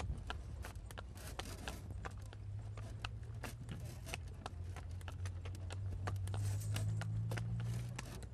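Horse's hooves clip-clopping along as it pulls a tonga (two-wheeled horse cart), several sharp hoofbeats a second, over a low steady rumble that grows louder in the last couple of seconds.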